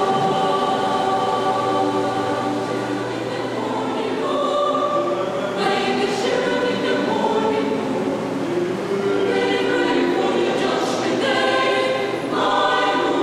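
Mixed choir of women's and men's voices singing held chords in several parts.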